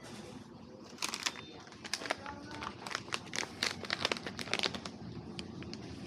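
Rapid crinkling and crackling handling noise, close to the microphone, in a dense run of sharp crackles from about a second in to about five seconds in.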